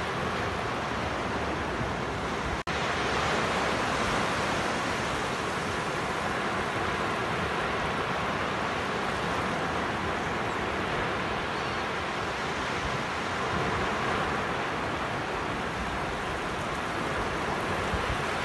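Small sea waves breaking and washing up a sandy beach: a steady rush of surf, cut by a momentary dropout about two and a half seconds in.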